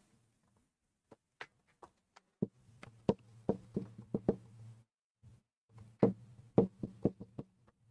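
Writing strokes: a pen, marker or chalk tapping and clicking against the writing surface in quick, irregular strokes, sparse at first and then dense, with a brief pause in the middle.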